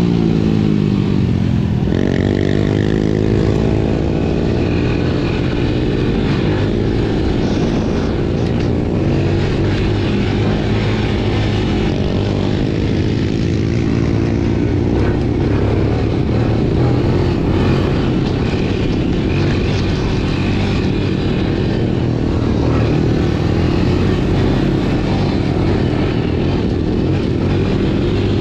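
Honda TRX90 quad's small single-cylinder four-stroke engine running under throttle, heard from the rider's helmet. The revs dip and climb again about two seconds in, then hold fairly steady.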